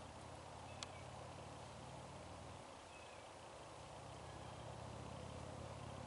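A low, steady groaning drone from a tree trunk that sounds as if it is about to split open; it breaks off about two and a half seconds in and starts again a second later. A single sharp click sounds just under a second in.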